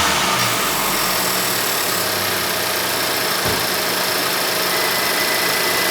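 Acura Integra Type S's turbocharged 2.0-litre four-cylinder idling steadily, heard from the engine bay by the intake, settling back down from a rev in the first half-second. A single brief low thump about three and a half seconds in.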